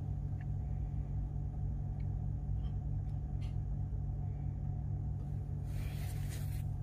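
Steady low rumble with a constant hum, a few faint ticks, and a brief hiss about six seconds in.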